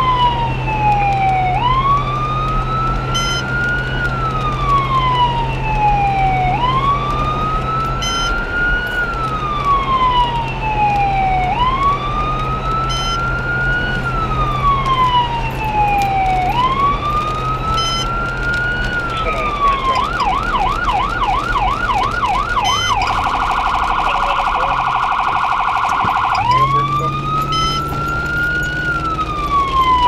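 Electronic emergency-vehicle siren on a fire department response, running a slow wail that rises and falls about every five seconds. About twenty seconds in it switches to a fast yelp, then a rapid trill for a few seconds, then goes back to the wail.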